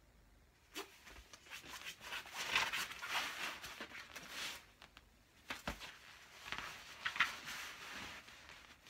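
Rustling and soft knocks of a person shifting out of a split on a foam gym mat, with one dull thump a little past the middle.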